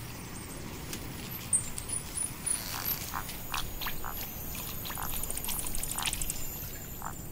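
Pond ambience of frogs croaking in short, repeated calls that start about three seconds in, over faint high chirping.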